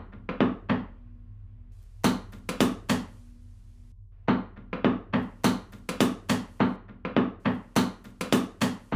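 Hands slapping a wooden butcher-block countertop in a drummed rhythm: a quick run of slaps at the start, another about two seconds in, then a steady run of about four slaps a second from about four seconds in.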